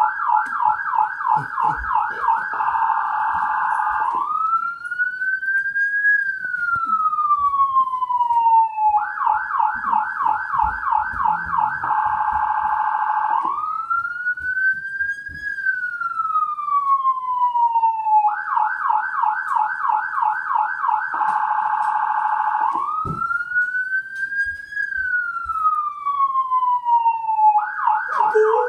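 Recorded police siren played from a Bluetooth speaker. It alternates between a fast warbling yelp and a slow wail that rises and falls in pitch, repeating about every nine seconds.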